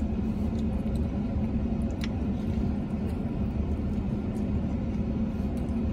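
Steady low hum of a parked vehicle running, heard from inside its cabin, with a few faint clicks of a man chewing a burrito, the sharpest about two seconds in.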